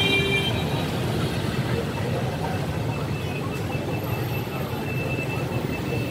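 Steady road traffic noise. A vehicle horn cuts off about half a second in.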